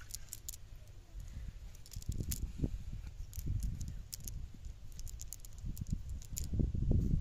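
A cast net being handled and pulled apart on the ground: rustling mesh and scattered light clicks and rattles from its weighted edge, with a louder low rumble near the end.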